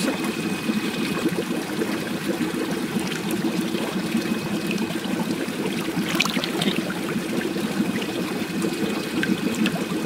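Water running and splashing steadily in a tub crowded with koi while the fish are scooped out by hand.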